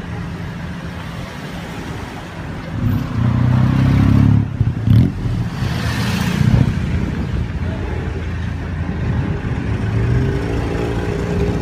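Street traffic engines running as a Chevrolet Optra station wagon drives off. A vehicle engine passing close is loudest from about three to seven seconds in, and an engine note rises near the end.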